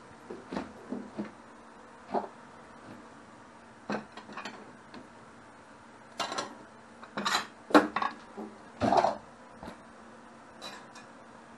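Kitchen utensils and dishes being handled: irregular clinks and knocks, with a few longer clatters in the second half.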